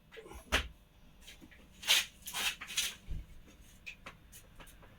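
Handling noise: scattered light clicks and knocks, with a few short rustling sounds about two seconds in, as high-voltage cables are worked into a 3D-printed plastic connector.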